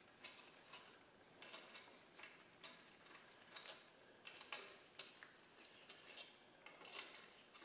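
Faint metallic scraping ticks, about two a second, from a drill bit turned by hand, shank end down, in a head bolt hole of a cast-iron Model T engine block. It is grinding up the debris packed at the bottom of the hole.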